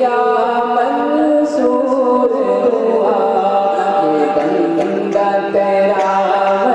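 A man singing an Urdu naat, devotional verse in praise of the Prophet, unaccompanied into a microphone, in long held notes that glide from one pitch to the next without a break.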